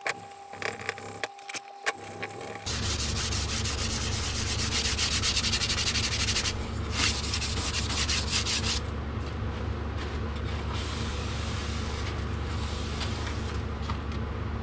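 A carbon fibre tube being sanded by hand: fast, scratchy back-and-forth rubbing that starts about three seconds in, is busiest through the middle and then eases off. A steady low hum runs under it, and a few light clicks come before it.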